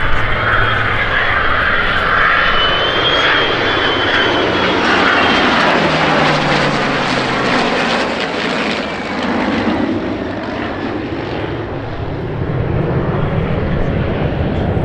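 Airplane engine running loud as an aircraft flies past, its tone sliding down in pitch as it goes by.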